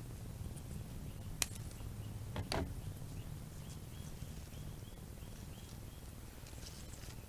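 Outdoor backyard ambience with a steady low rumble. Two sharp clicks come about a second and a half in and a second later, then a run of small, faint chirps repeats at about two to three a second for a few seconds.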